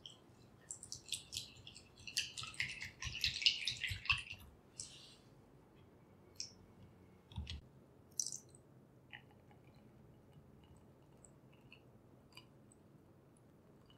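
Wire whisk stirring a thin egg-and-milk pudding mixture in a glass bowl: quick clicks of the wires against the glass with liquid sloshing, loudest about three seconds in. A few scattered taps follow, and a soft knock about seven and a half seconds in.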